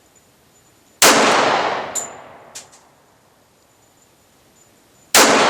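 Two shots from a Glock 30 .45 ACP pistol, about four seconds apart, each ringing out for about a second under a tin roof. A couple of faint clinks follow the first shot.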